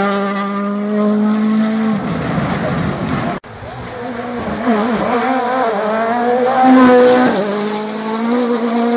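Rally car engine pulling hard at high revs, its pitch held steady for about two seconds. After an abrupt cut about three and a half seconds in, another rally car's engine is heard approaching, its revs rising and falling through gear changes and lifts.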